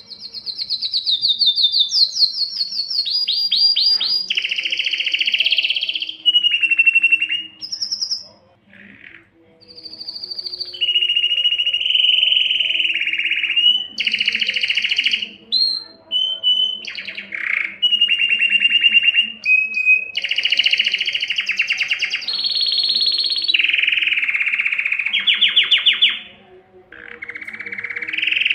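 Male domestic canary singing: a long run of fast trills and rolling repeated-note series, each held for a second or two before jumping to a new pitch, with short breaks about a third of the way in and near the end. This is the excited breeding song used to stir hens to mate.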